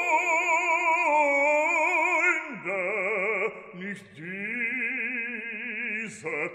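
Background music: an operatic voice singing long, held notes with a wide vibrato.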